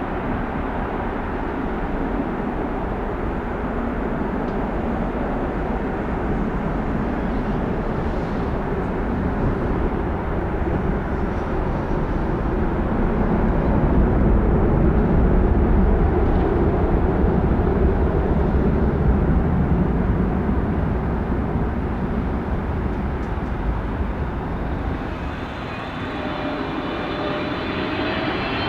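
Jet engine rumble from a departing Boeing 747-400F cargo jet, swelling and then easing off. About three-quarters of the way in, the steady whine of an approaching Boeing 777-200F's engines comes in.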